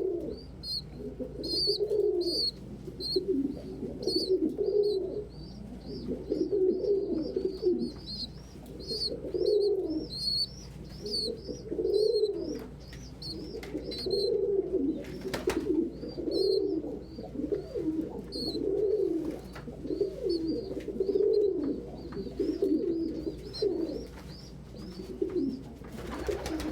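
Domestic pigeons cooing over and over in a loft, with high, thin peeping running several times a second under the coos.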